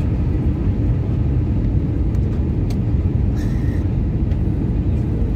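Steady cabin rumble of an Airbus A320-233 in flight, heard from a window seat beside the wing: engine and airflow noise from its IAE V2500 turbofans, deep and even throughout. A few faint ticks sound in the middle.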